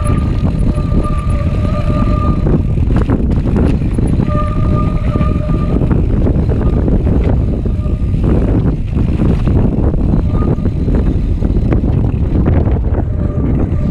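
Mountain bike riding over a rough trail, picked up by the GoPro: steady wind buffeting and rumble with frequent rattling knocks from bumps. A held squeal sounds for a couple of seconds at the start, again around four seconds in, and briefly twice near the end.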